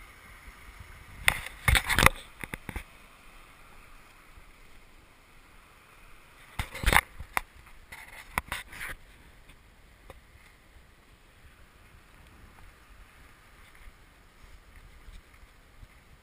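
Faint, steady rushing of a small stream that fades after about nine seconds. It is broken by two clusters of sharp knocks and scrapes, the loudest sounds, about a second in and again about seven seconds in.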